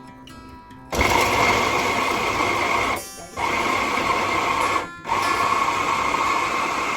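Electric food processor chopping onions. Its motor starts about a second in and runs in three stretches, with two short breaks between them.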